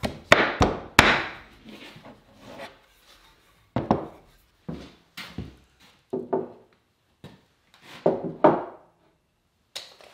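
Dry-fitting a white oak mortise-and-tenon leg frame by hand: several quick sharp wooden knocks in the first second as the top rail is pounded down onto the leg tenons with a fist. These are followed by scattered wooden knocks and clunks as the assembled oak frames are handled and set on a wooden workbench.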